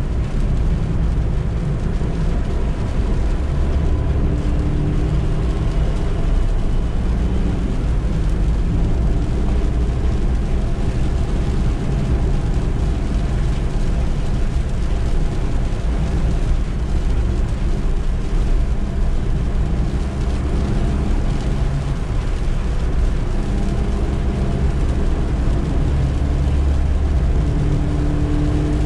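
Suzuki Eeco's 1.2-litre four-cylinder petrol engine running while the van drives, with road noise, a steady low drone whose pitch shifts now and then with engine speed.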